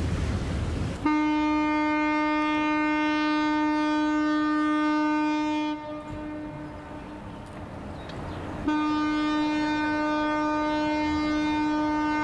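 Ship's horn sounding two long blasts of about five seconds each, at one steady pitch, with a pause of about three seconds between them. The first second is wind and sea noise.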